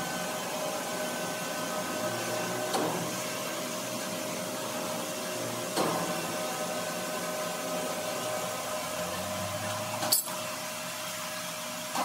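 Sawmill machinery running with a steady hum, broken by three short knocks, the sharpest about ten seconds in.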